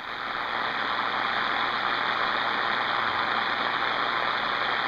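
CB radio receiver static: a steady, even hiss of 11-meter band noise with a faint steady whistle in it, heard through the radio's speaker once the other station's voice drops out.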